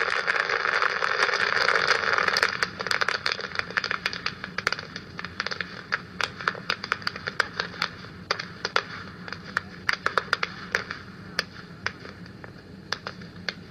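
A firework hissing for about two and a half seconds, then a long run of sharp crackling pops, irregular and thinning out toward the end.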